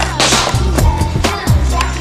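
Music with a steady, thudding drum beat, with a short hissing burst just after the start.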